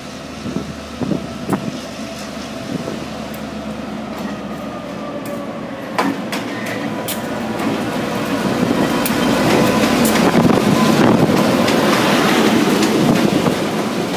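KiwiRail DC-class diesel-electric locomotive (EMD G22AR) pulling a passenger train away, its engine running steadily and growing louder as it nears and passes. From about the middle on, wheels rumble and click over the rails as the carriages roll past.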